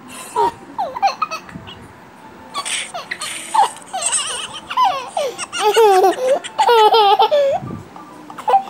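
Small child laughing in a run of giggles that builds from scattered bursts to loud, rapid peals of laughter in the second half.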